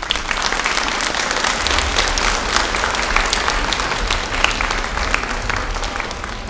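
Audience applauding: a dense patter of many hands clapping that sets in at once and eases off a little toward the end.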